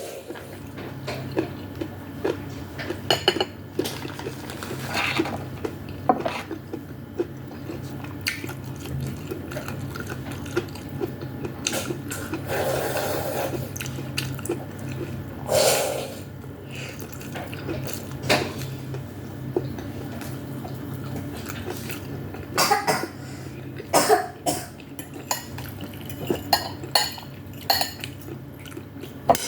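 A spoon clinking and scraping against a bowl of hot vegetable soup with meatballs, in scattered taps and knocks, with occasional sipping or slurping, over a steady low hum.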